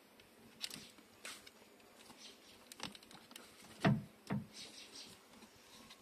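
Scattered small clicks, taps and rustles of hands handling a plastic power-window switch unit and its wiring harness, with two louder knocks a little past halfway.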